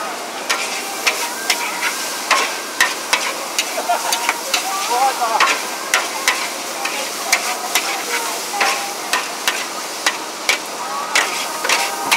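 Char kuey teow noodles sizzling in a hot wok over a gas flame, with a spatula scraping and knocking against the wok about twice a second as the noodles are tossed.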